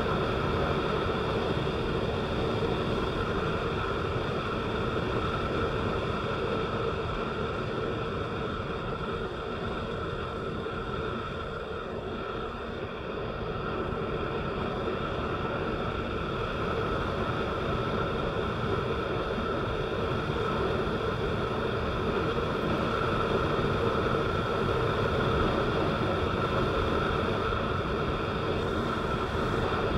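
Vehicle driving on a wet road: steady engine and tyre noise with a constant hum, easing a little about twelve seconds in.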